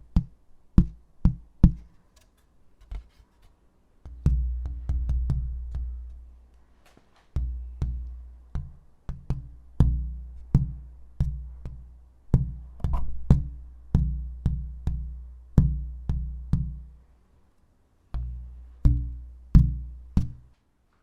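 Rhythmic electronic-sounding percussion: sharp clicking hits in a steady beat over deep bass notes, with short lulls twice.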